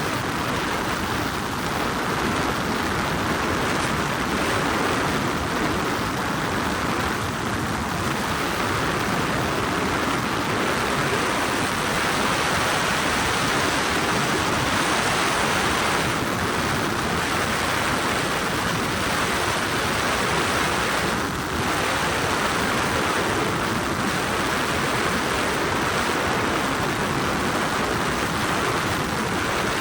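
Steady helicopter noise inside the cabin: the engine and rotors running as one even rushing drone with no breaks.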